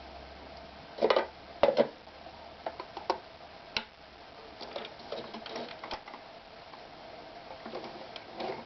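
Jaguar Mini 281 sewing machine making irregular mechanical clicks and knocks over a faint steady hum, the loudest knocks about a second and two seconds in.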